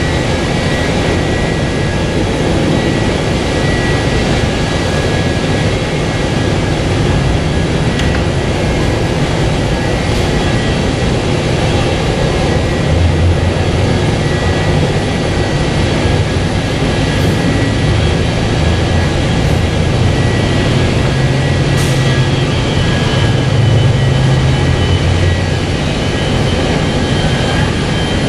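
MD-82 airliner's Pratt & Whitney JT8D jet engines idling: a steady rushing noise with a high, even whine. A low rumble grows louder about halfway through and eases off near the end.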